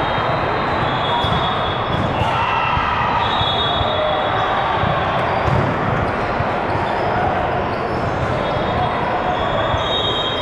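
Indoor volleyball play in a large hall: balls being hit and bouncing with repeated thumps over a steady din of many voices, with brief high squeaks coming and going.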